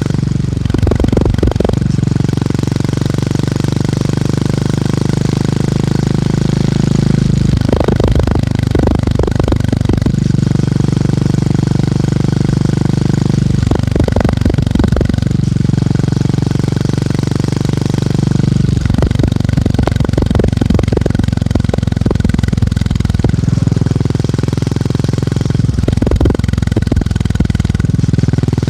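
Motorcycle engine and exhaust thumping steadily under way, the note briefly breaking up about every five or six seconds.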